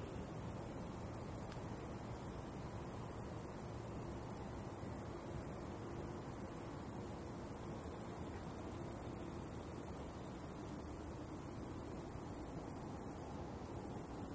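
Night-singing crickets or bush crickets stridulating without a break: a steady high-pitched trill that dips briefly about 13 seconds in.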